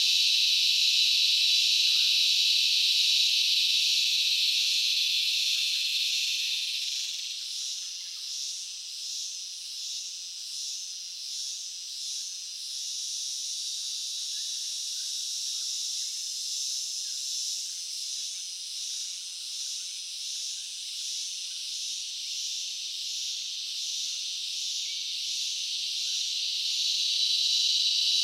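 Insects buzzing in a high, steady chorus. About seven seconds in it drops a little and pulses about once a second, then swells back to a steady buzz near the end.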